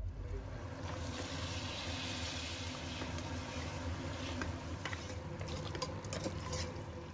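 Raw mutton pieces sizzling in hot masala and oil in a pressure cooker while being stirred with a metal slotted spatula, with a few sharp clicks of the spatula against the pot from about four seconds in.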